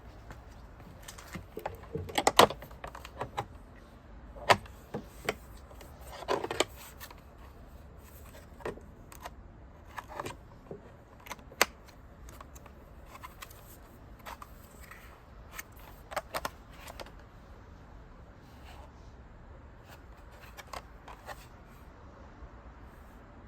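Hands handling the parts and packaging of a warm mist humidifier: irregular plastic clicks, knocks and rustles. The sharpest clicks come about two seconds in, at about four and a half seconds, and near twelve seconds.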